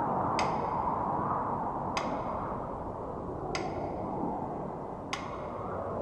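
Steady ride rumble of a moving vehicle heard from inside, with a sharp, ringing tick repeating about every one and a half seconds.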